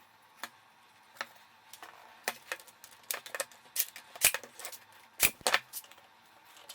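Irregular light clicks and knocks of plywood drawer pieces being handled and fitted together for gluing and nailing, with two sharper knocks about four and five seconds in.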